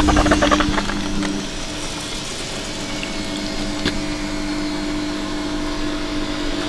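A steady machine hum with a few held tones over a hiss, like a small motor or pump running; a quick run of clicks sounds in the first second.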